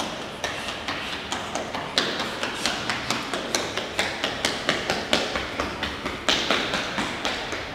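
A toddler's quick footsteps tapping on a bare concrete floor, about three sharp steps a second.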